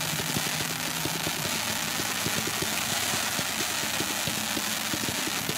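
Raccoon 'Sucker Punch' 500 g sprinkler cake firing crackling willow comets in rapid succession: a fast, even string of launch thumps under a continuous crackling hiss.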